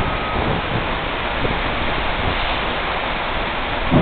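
Thunderstorm downpour: heavy rain falling as a steady, even hiss.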